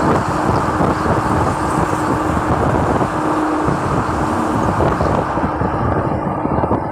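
Busy highway traffic: steady noise of passing vehicles' tyres and engines, with a steady low hum underneath. The high hiss thins out about five seconds in.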